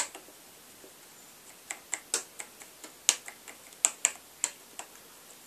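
Light, irregular clicks and taps from fingers and a pencil working on the opened Casio keyboard's plastic key parts and contact strip. After one click at the start there is a pause of about a second and a half, then about a dozen scattered clicks.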